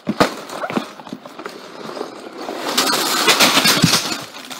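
Cardboard Lego box being torn open and handled, with scattered knocks and tearing at first, then about three seconds in a dense crackling rustle of the plastic bags of pieces inside being shaken out.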